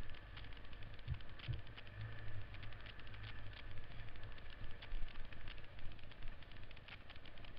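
1970s Honda XL trail bike's single-cylinder four-stroke engine running as the bike rides a rough dirt trail, with frequent small clicks and rattles as it bumps over the ground.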